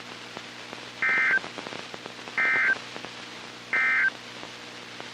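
NOAA Weather Radio's EAS End-of-Message code: three short bursts of two-tone digital data, about a second and a half apart, marking the end of the tornado warning broadcast. Faint receiver hiss and hum lie underneath.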